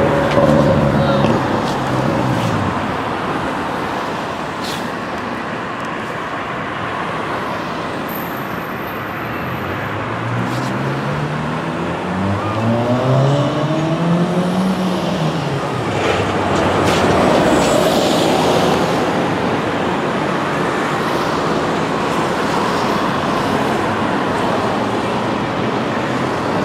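Motor traffic passing along a road, with one vehicle's engine rising in pitch and then dropping back about halfway through.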